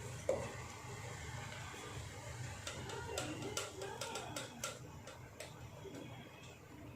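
Light, scattered clicks and taps of a spoon against a dish as ground spice is added, over a steady low hum.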